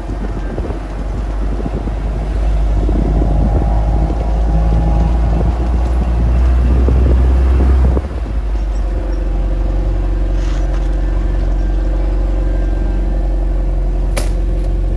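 Engine of an open-topped off-road vehicle driving along a dirt road, with a heavy low rumble. The rumble builds, then drops off suddenly about eight seconds in as the engine eases back, and the engine settles into steady running. A single sharp click comes near the end.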